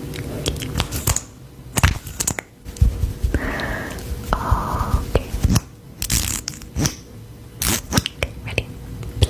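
Close-miked handling noises: scattered clicks and taps with crinkling, and two short rasping, tearing-like sounds a little before the middle.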